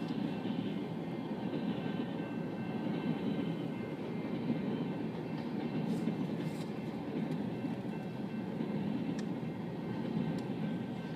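Freight train of covered hopper cars rolling past, a steady rumble of wheels on rails with a few sharp clicks.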